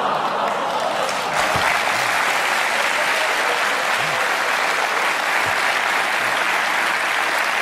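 Studio audience applauding: a steady wash of clapping that swells slightly about a second in.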